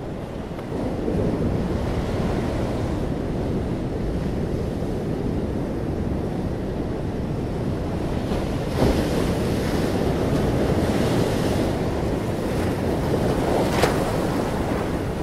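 Steady low rumbling noise on the microphone, with a short knock about nine seconds in and another near the end.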